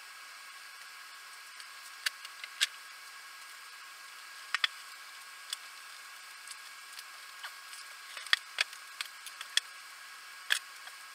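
Scattered light clicks and taps at uneven intervals over a steady hiss, from small parts and tools being handled at a workbench.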